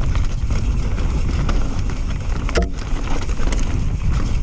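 Mountain bike rolling fast down a dirt singletrack: steady tyre and trail noise under heavy wind rumble on the action-camera microphone, with one sharp knock about two and a half seconds in.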